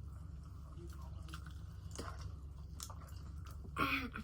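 Close-miked chewing and biting of fried food, with scattered small crackles and wet mouth clicks, over a steady low hum. A brief vocal sound comes near the end.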